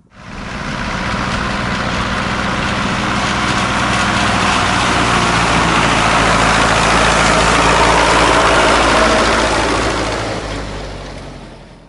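Quad bike engine running hard as it drives through a deep muddy puddle, with water splashing and spraying. The sound swells, is loudest late on, then fades away near the end.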